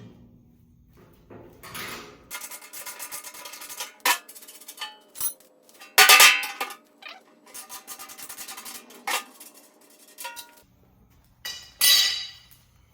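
A ratchet with a deep well socket clicking in quick runs as the wheelbarrow's bolts are backed out, with several sharp metallic clanks in between, the loudest about six seconds in and near the end.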